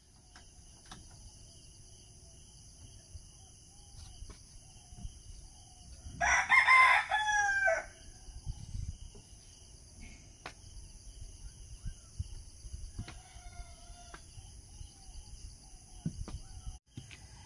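A rooster crows loudly once, about six seconds in, for about a second and a half, and a second, fainter crow follows about thirteen seconds in. A steady high insect chorus runs underneath, with a few light knocks.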